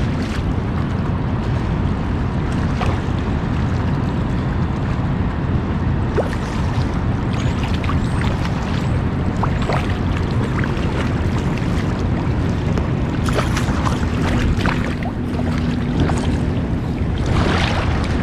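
Wind rumbling on the microphone over small waves lapping at a rocky shoreline, with scattered small clicks. A faint steady hum joins in during the second half.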